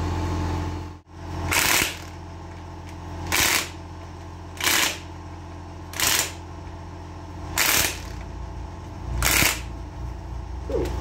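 Cordless impact driver running in the bolts of a Land Rover front hub drive flange, in six short bursts about a second and a half apart, over a steady low hum.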